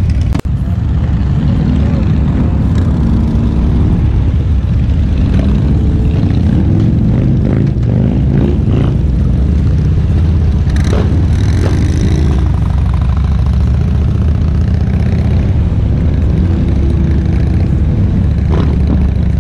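Motorcycle engines running loud and steady as a column of motorcycles rides off, with the rider's own bike closest, and engine revs rising and falling as they shift and pick up speed.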